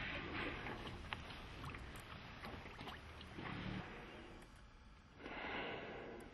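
Wind and water noise around a sailboat, with a louder whoosh of noise about five seconds in that lasts about a second.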